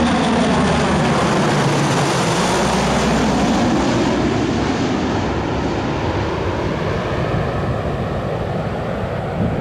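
US Navy C-130T Hercules with four turboprop engines passing low overhead on approach to land. The propeller and engine drone falls in pitch as the aircraft goes past, then fades slowly as it moves away.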